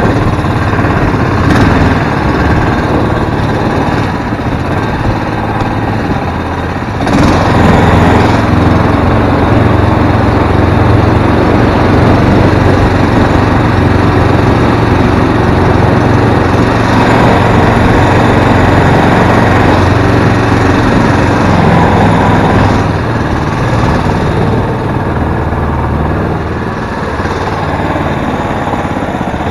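Mud motor's small gas engine running the boat under way: it is throttled up about seven seconds in, held steady at speed, then eased back a few seconds before the end.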